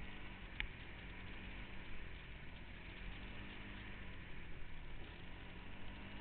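Off-road vehicle engine running steadily during trail riding, with a rushing noise over it. A single sharp click about half a second in.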